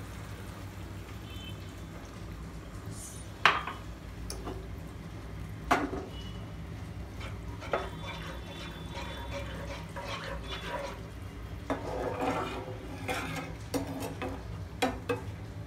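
A slotted metal spatula stirring and scraping through a thin sauce in a nonstick frying pan, with sharp clinks against the pan about three and a half and six seconds in, and a quick run of scrapes and taps near the end. A steady low hum runs underneath.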